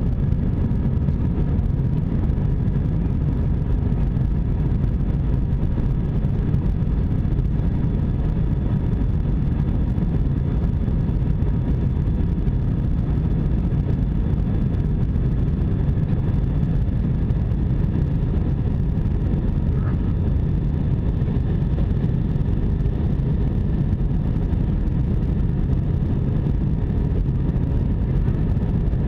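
Steady rumble of an Airbus A320's engines and rushing air heard inside the passenger cabin, with faint steady whining tones above it.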